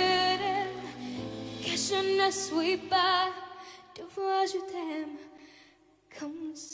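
A young girl singing a slow song solo into a microphone over backing music, holding notes with vibrato. The accompaniment thins out partway through and the sound falls briefly almost silent near the end.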